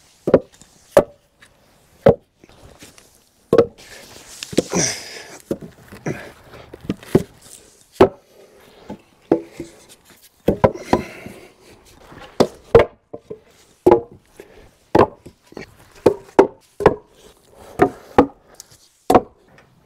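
Wooden 4x6 timbers being set down and stacked into a cribbing tower: a long run of irregular, hollow wood-on-wood knocks, with a board scraping across the stack about five seconds in.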